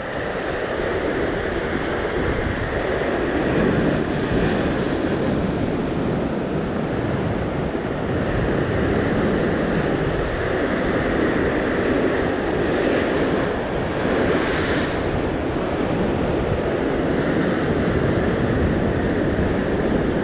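Ocean surf breaking and washing over coastal rocks, a continuous rush that rises and falls with the swells, with wind buffeting the microphone.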